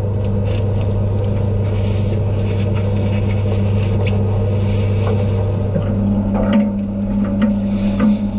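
Steady low mechanical hum inside a saturation diving chamber, with a second steady tone that grows stronger about six seconds in. Plastic garbage bags rustle over it, with scattered light knocks as they are handled.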